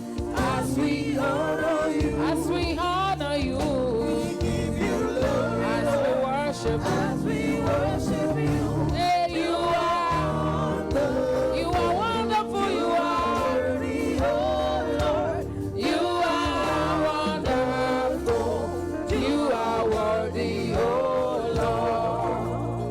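Gospel worship music: sung praise with choir voices over band accompaniment, the voices holding long, sliding melodic lines throughout.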